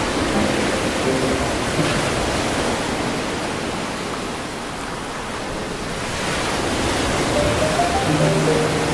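Background music over a steady rushing noise. The melody thins out for a few seconds in the middle and comes back near the end.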